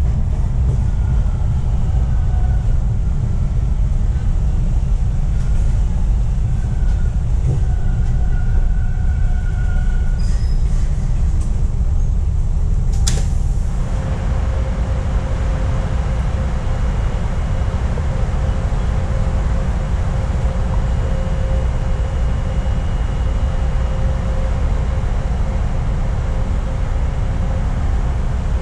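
TTC Line 2 subway train running, heard from inside, with a steady low noise throughout and faint squeals in the first half. A single sharp click comes about thirteen seconds in, after which the noise turns steadier with a low steady hum.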